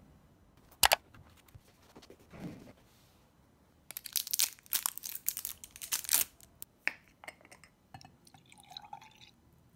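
A sharp click about a second in, then a quick run of glassy clinks and scrapes from a glass jar being handled. Near the end, iced coffee is poured from a glass jar into a glass of ice.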